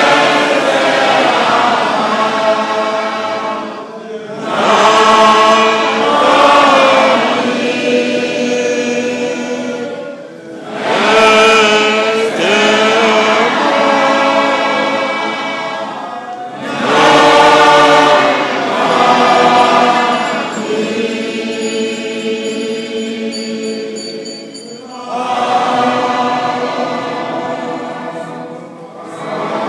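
A large congregation singing a Harrist hymn together as a choir, phrase by phrase, each phrase swelling and then fading, with short breaks between them.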